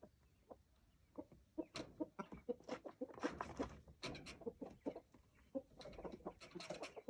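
Chickens clucking in quick, short calls that start about a second in and come thicker toward the end.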